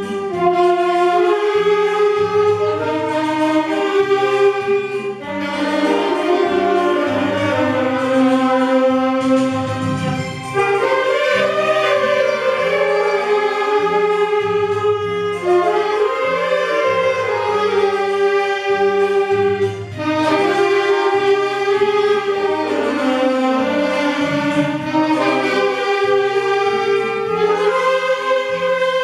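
Beginners' saxophone ensemble playing a melody together in held notes.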